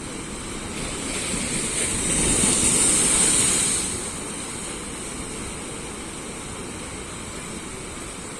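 Black Sea waves on the shore: one wave swells up and breaks loudest about two to four seconds in, then falls back to a steady wash.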